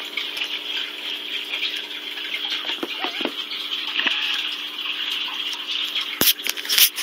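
Phone being handled close to the body: rubbing on the microphone over a steady hiss and low hum, with a couple of sharp knocks near the end.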